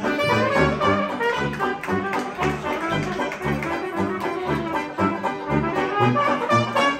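Small traditional jazz band playing live: trumpet lead over saxophones, with a sousaphone bass line of steady low notes about two a second.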